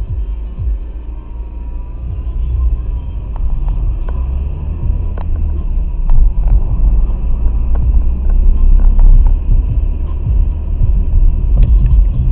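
Low rumble of a car's engine and tyres heard from inside the cabin through a dashcam's microphone, growing louder about halfway through as the car gets moving.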